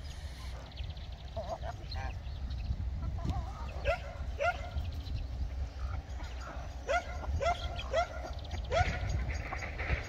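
Domestic geese in a feeding poultry flock giving short, rising honks, repeated in small clusters of two or three calls half a second apart.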